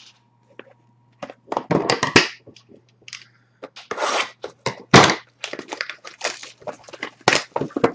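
A sealed trading-card box being cut and torn open: its plastic wrap and tape crackle and crinkle in sharp bursts, with clicks from the cardboard.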